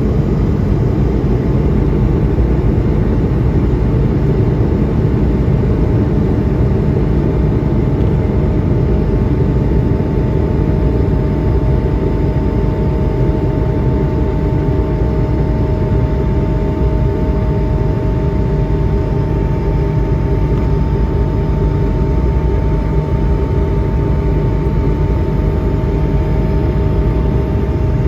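Steady cabin noise inside an Airbus A220-100 with its Pratt & Whitney PW1500G geared turbofans running: a deep, even rumble with two steady engine tones over it.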